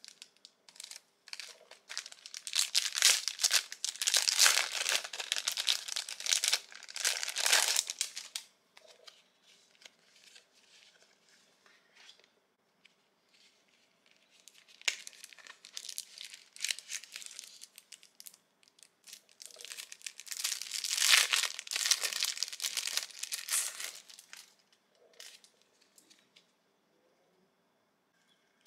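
Clear plastic packaging crinkling and tearing as it is opened and handled, in two long loud bouts: one from about a second in to about eight seconds, the other from about fifteen seconds in to about twenty-four, with softer rustling between.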